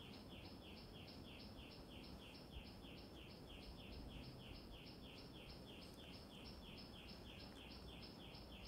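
Faint, steady chirping from outdoors, a high short chirp repeated evenly about three or four times a second, over otherwise near-silent room tone.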